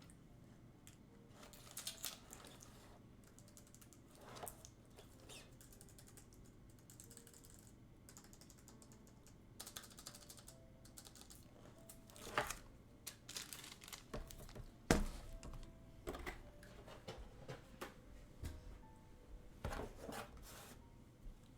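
Keys of a TypeMatrix 2030 keyboard being pressed in faint, irregular clicks, sparse at first and coming more thickly in the second half.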